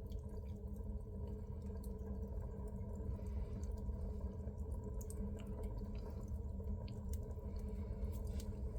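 Wood fire in a wood-burning stove crackling with scattered faint pops as it flares back up with the air vent opened, over a steady low hum.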